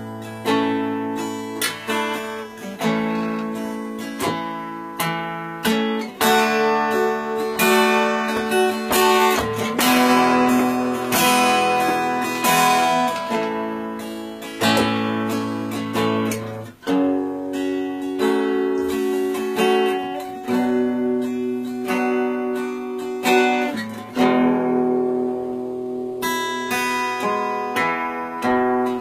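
Acoustic guitar strumming chords without singing: an instrumental passage of a worship song.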